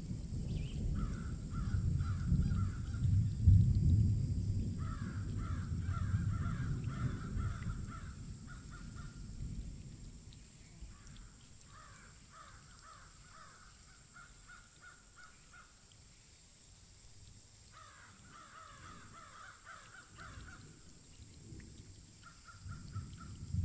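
Electric rotary hammer with a chisel bit chipping into a soft sandstone wall: a low rumbling for the first nine seconds or so, stopping around ten seconds in and starting again near the end. Throughout, a bird calls in short rapid chattering bursts every few seconds.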